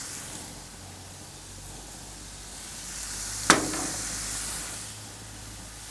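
Raw bratwurst meat on mini tortillas sizzling on a hot gas grill's griddle plate: a steady high hiss, swelling slightly. A single sharp clack about three and a half seconds in.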